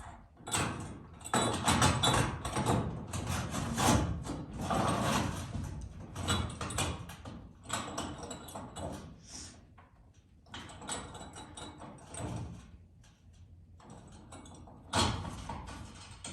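A large homemade sliding door and its metal hardware being moved and handled, giving irregular bursts of scraping and rumbling with short pauses between them.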